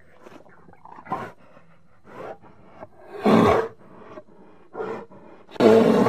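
Brown bear growling in bursts of about half a second: a loud one about three seconds in and another near the end, with softer, shorter ones between.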